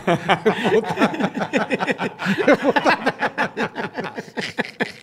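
Several men laughing together in rapid, repeated bursts.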